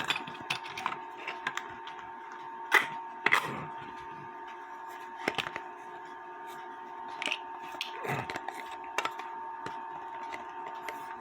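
Irregular clicks and knocks of metal grandfather-clock weight parts being handled and fitted as the threaded rod goes through the weight shell, with two sharper knocks about three seconds in. A steady faint tone lies underneath.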